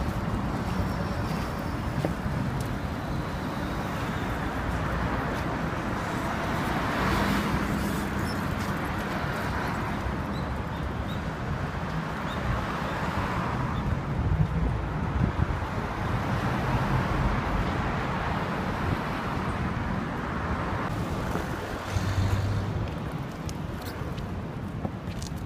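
City street traffic noise with passing cars, and a large block of ice scraping over stone paving tiles as it is pushed along.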